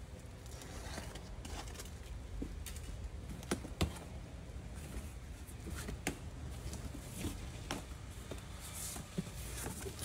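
Cardboard shipping box being opened by hand: scattered clicks, taps and scrapes as the taped seam is cut and the flaps are pulled open.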